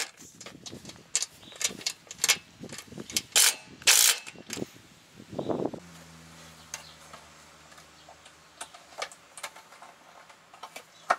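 Irregular metallic clicks and knocks of hand tools and hardware as a ground-wire eyelet is fastened under a screw into the RV frame. The clicks are busiest over the first six seconds, then give way to a few faint ticks over a low steady hum.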